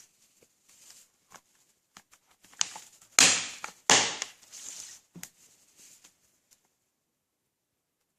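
A plastic DVD case and its wrapping being handled: scattered small clicks and crinkling, with two louder crackling rustles close together a little past the middle.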